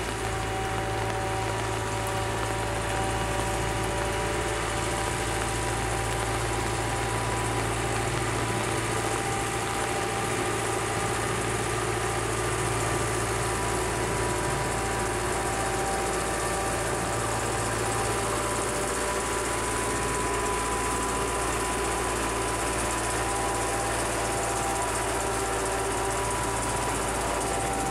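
Railway locomotive standing with its machinery running: a steady hum with several held whining tones over it.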